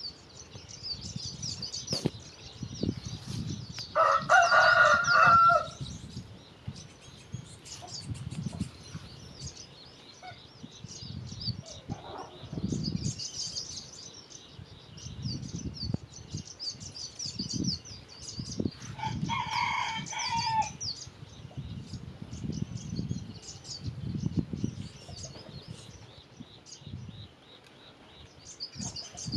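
A rooster crows twice, once about four seconds in and again around twenty seconds, over continual chirping of small birds.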